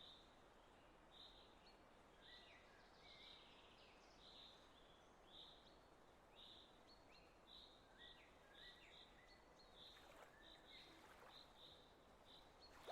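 Near silence: a very faint nature-sound bed with soft, high chirps repeating roughly twice a second.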